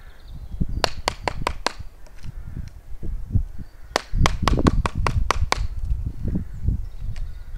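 Sharp knocks of a round birch billet striking a hatchet head set in a birch pole, in two quick runs: about five blows around a second in, then about seven more from about four seconds in.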